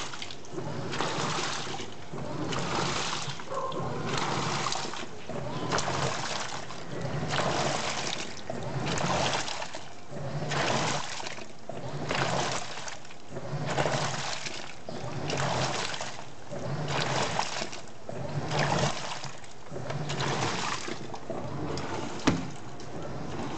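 Panasonic 15 kg top-loading washing machine in its wash cycle: water churns and splashes in regular surges about every one and a half seconds as the pulsator swings back and forth, each stroke carrying a low motor hum. A single sharp click comes near the end.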